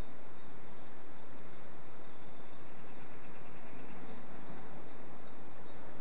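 Steady outdoor background noise with a few short, faint, high bird chirps, about half a second in, around the middle and again near the end.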